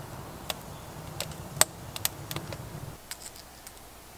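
Small wood campfire crackling in a steel fire ring, with sharp pops and snaps scattered through the first three seconds, the loudest about a second and a half in. Then it drops to a quieter hiss with a few faint ticks.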